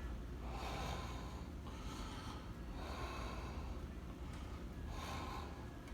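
A person breathing in and out close to the microphone, several faint breaths one after another.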